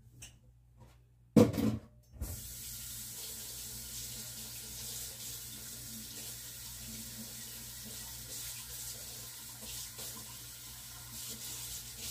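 A loud knock about a second and a half in, then a kitchen faucet turned on about two seconds in, running steadily into the sink while a spatula is washed.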